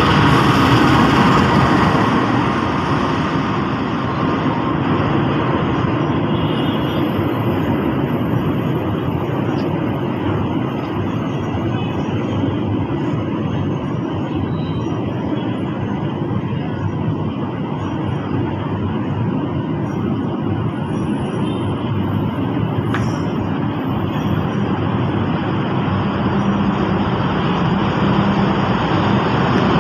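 A diesel locomotive and a long rake of passenger coaches running through a station at speed without stopping: a steady, loud rolling noise of wheels on rails. It is loudest in the first couple of seconds as the locomotive goes by, then holds steady as the coaches stream past.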